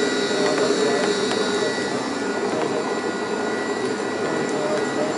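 Open cable lift's winch motor running steadily as the basket descends: a whirring hum with a thin, steady high whine above it.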